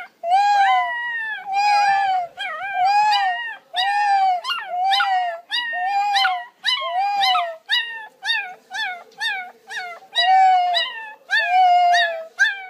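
Chihuahua puppy howling: a long run of short, high howls, each rising and falling in pitch, coming quicker and shorter in the second half.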